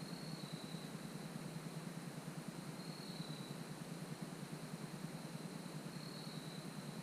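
A high, steady insect buzz that swells briefly about every three seconds, over a low steady background rumble.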